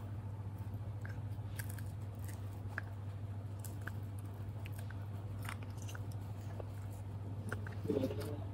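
Faint biting and chewing of spiced fried chicken, with small crunches, over a steady low hum.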